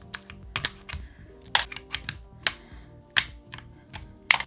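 Keycaps being pulled off a Keychron Q1 HE mechanical keyboard: about a dozen sharp, irregular plastic clicks and clacks. Soft background music plays underneath.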